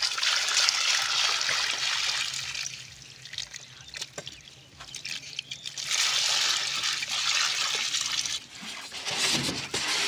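Water streaming and trickling off a mesh trap net as it is hauled up out of the river, full of small fish. It comes in two heavy spells with a quieter dripping gap between them, and a few small knocks near the end.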